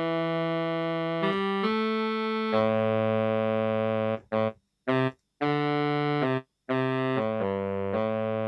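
Kurzweil K2000 synthesizer playing a factory program dry, with no effects: held keyboard chords that change about every second, with two brief silent gaps near the middle.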